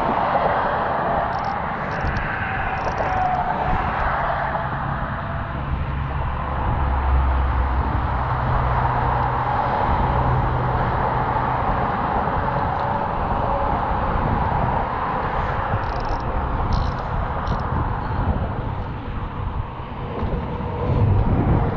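Steady outdoor traffic noise of vehicles passing, with a deeper rumble swelling in the middle and a few faint high ticks.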